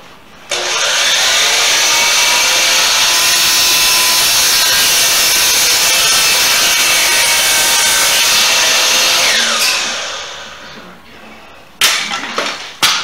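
DeWalt sliding miter saw starting abruptly and running steadily while cutting wood, then switched off and winding down with a falling pitch about ten seconds in. A few sharp knocks follow near the end.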